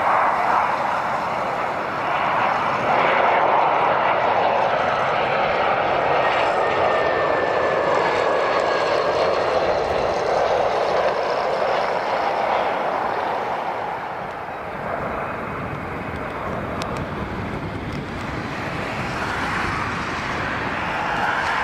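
Jet airliner engines, a loud steady rush of engine noise with a faint whine that slides down in pitch about a third of the way in. The noise eases a little after the middle and builds again near the end.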